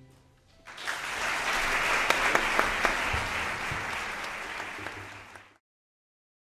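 Audience applauding. The clapping starts just under a second in, after the last note has died away, holds strong and then eases a little before it cuts off abruptly near the end.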